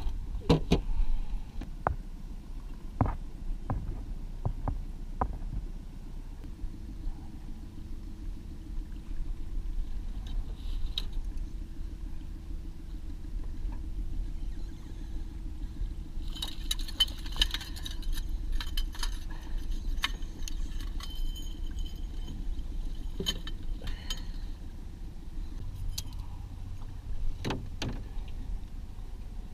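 Boat motor running steadily at trolling speed, a low hum under the whole stretch. A few sharp knocks from the cooler lid come in the first seconds, and about halfway through there is a long run of fast metallic clicking and rattling.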